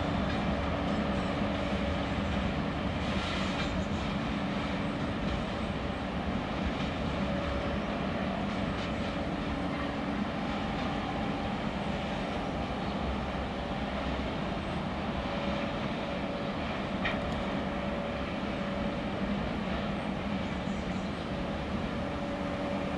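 Freight train of gondola wagons rolling away: a steady rumble of wheels on rails under the steady drone of the ChME3 diesel shunting locomotive hauling it, growing slightly fainter.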